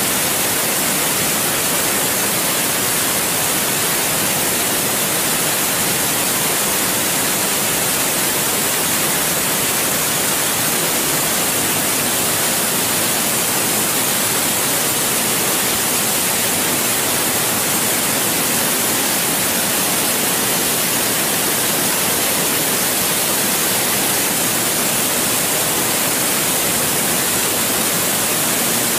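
Waterfall in flood, a wide curtain of water pouring down a rock face into a pool: a steady, loud rush of falling water.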